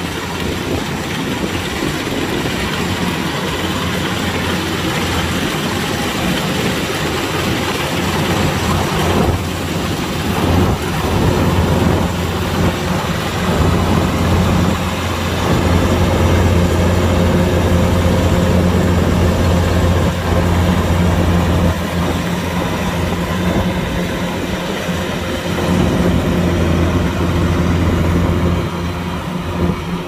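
Kubota DC-105X combine harvester's diesel engine running steadily under a broad rush of machinery noise, the engine note swelling slightly midway and easing a little later on.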